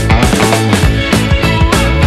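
Loud background rock music with a steady drum beat.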